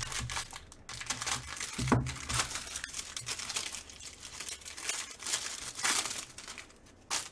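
Foil wrapper of a baseball card pack being picked up and torn open by hand: a run of irregular crackling and crinkling rustles, loudest about two seconds in, with a short sharp crackle near the end.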